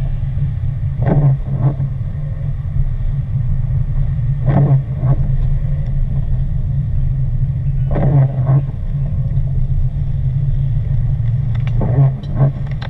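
Car cabin noise while driving: a steady low rumble of engine and road. Over it, windshield wipers make pairs of short swishes about every three and a half seconds.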